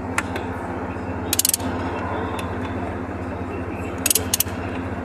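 Ratcheting wrench tightening a nut on an alternator mount, clicking in short quick runs about a second and a half in and again about four seconds in, with a single click near the start. Under it runs a steady low mechanical drone.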